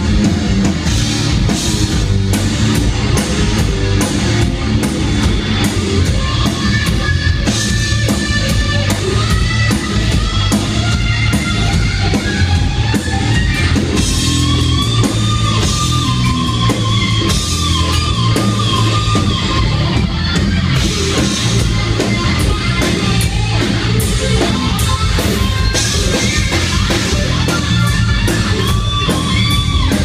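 Live rock band playing loud, with electric guitar and a drum kit pounding steadily throughout.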